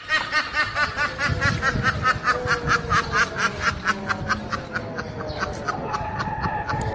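A rapid, high-pitched cackling laugh, about five bursts a second, thinning out about five seconds in, with faint music underneath.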